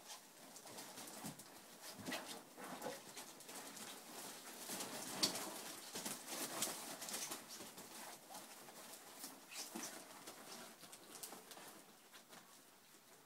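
34-day-old Akita puppies tussling, with soft grunts and little squeaks and the scuffling and scratching of paws on bedding.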